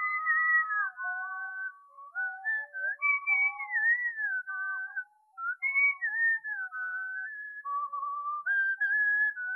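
Human whistling a melody, gliding smoothly between notes, with a second, lower melodic line running beneath it as accompaniment. There is a short break in the phrase about five seconds in.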